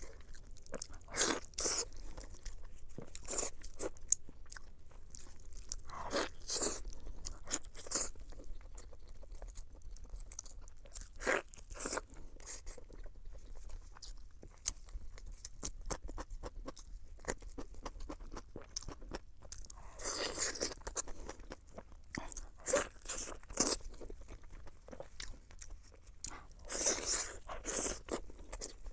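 Close-miked eating: chewing and crunchy bites of sweet pork in chili sauce, with wet mouth sounds and irregular clicks. Louder bursts of chewing come a few times, strongest about twenty seconds in and near the end.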